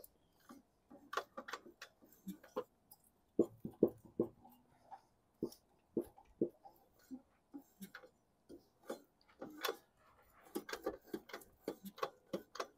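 Lawn mower blade rocked back and forth by hand, the engine clicking and knocking in irregular runs as it changes direction: connecting rod play, which the owner takes as a sign the engine is shot.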